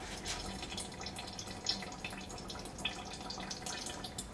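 Transmission fluid dripping and splattering from a leaking speed sensor port on an automatic transmission, heard as irregular small drips and splats.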